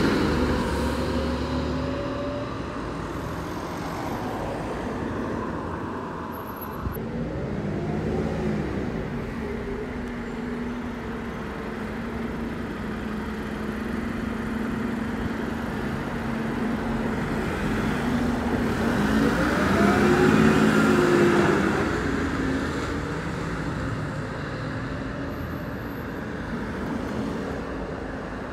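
Dennis Eagle Elite 6 refuse collection truck driving past close by. Its diesel engine and tyres are loud at first and fade away. Road traffic keeps passing, with vehicles going by about a third of the way in and, loudest, about two-thirds of the way in.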